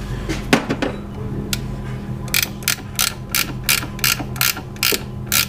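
Hand ratchet wrench clicking in quick, regular strokes, about three a second, starting a couple of seconds in, as it turns a nut on a C5 Corvette's brake master cylinder. A few metal clinks come about half a second in, before the ratcheting starts.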